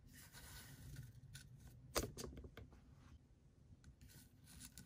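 Faint handling sounds of small fishing tackle on a tabletop: fingers rustling the line, one sharp click about two seconds in, then a few lighter clicks.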